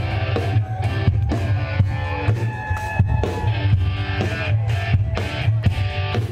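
A live rock band playing electric guitars and bass over a drum kit that keeps a steady beat.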